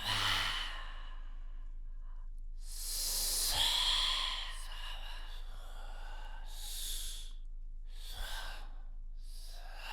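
A person imitating ocean waves with the voice alone: breathy, hissing swells that rise and fall like surf washing in. About five swells, the longest and loudest about three seconds in.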